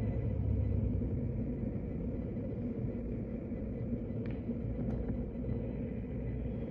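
A steady low rumble, with two faint clicks about four and five seconds in.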